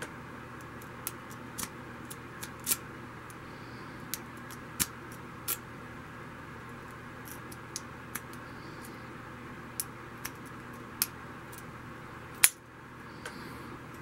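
A homemade snake pick and tension wrench scrape and click irregularly inside a brass Sesamee pin-tumbler padlock as the pins are set under heavy tension. Near the end comes one much louder sharp click as the lock opens.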